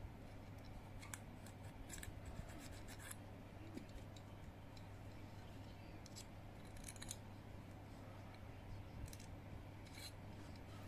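Faint scraping and clicking of a drill bit turned by hand inside a Zippo lighter's flint tube, grinding out hardened, crumbled flint residue that is jamming the tube. It comes in scattered short strokes over a steady low hum.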